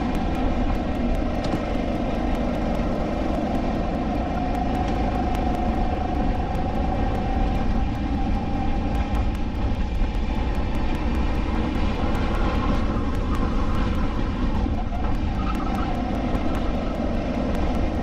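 Onboard sound of a SODI LR5 rental kart's 160cc four-stroke engine running under race load. The note rises and falls a little as the driver accelerates and lifts through the corners.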